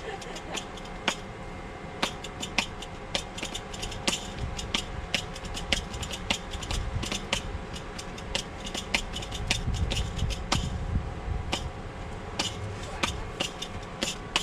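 Rapid, irregular clicking and tapping, several sharp taps a second, over a steady hum.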